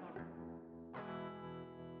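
Quiet closing music on a guitar with effects: held chords ringing, a new chord struck about a second in and left to ring out as the music fades.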